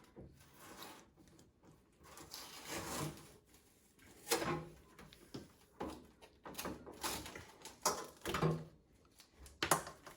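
Irregular knocks, scrapes and rustling from handling the packaging of a new microwave oven while unboxing it, with a longer rustle about two to three seconds in and several sharper knocks in the second half.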